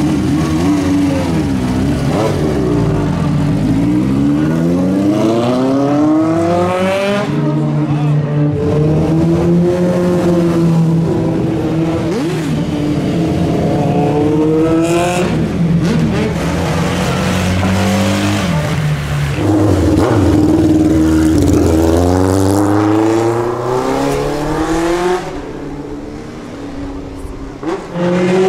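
Motorcycle engines revving and accelerating away one after another, the pitch climbing and then dropping back at each gear change, several times over. At the start it is a Honda CBX 750F's inline four pulling off.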